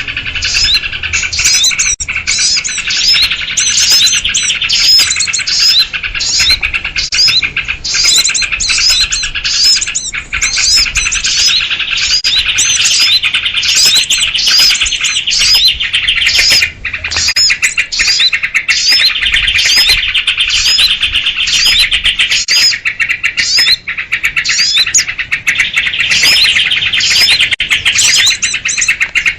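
A noisy flock of small birds with sooty-headed bulbuls (kutilang) calling excitedly, many rapid high chirps overlapping in a dense, unbroken chatter. This is a bird-trapping lure call meant to draw in small birds.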